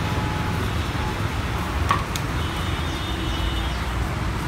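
Steady rumble of city road traffic below, with a horn sounding for about a second and a half around halfway and a single sharp tick just before it.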